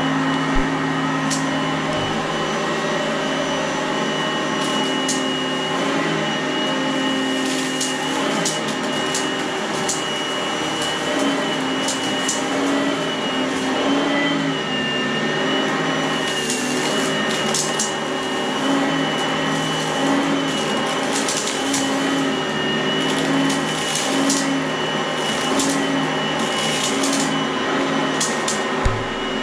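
Oreck upright vacuum cleaner running steadily with a high motor whine that wavers slightly in pitch, while debris on the rug clicks and crackles sharply up through the nozzle again and again.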